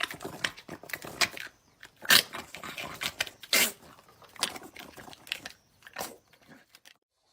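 A dog chewing and tearing at something: a run of irregular crunching and ripping noises, ending abruptly near the end.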